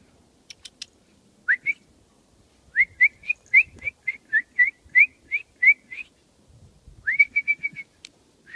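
A run of short, rising whistled notes, about three or four a second, starting about a second and a half in, then a pause and a quicker group of notes near the end. A few faint clicks come just before the first notes.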